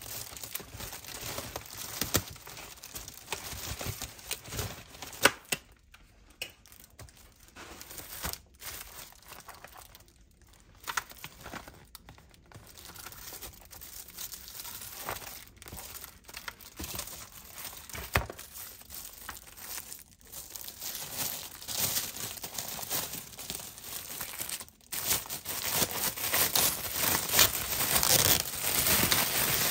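Packaging being unwrapped by hand: crinkling and tearing of wrapping, with scattered sharp clicks, getting louder over the last few seconds.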